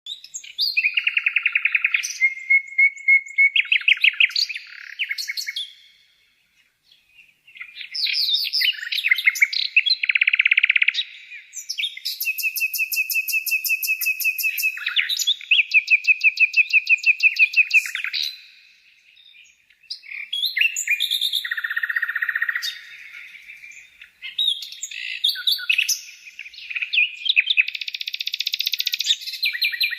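A songbird singing a long, varied song of rapid repeated notes, trills and held whistled notes, broken by two short pauses, about six seconds in and about nineteen seconds in.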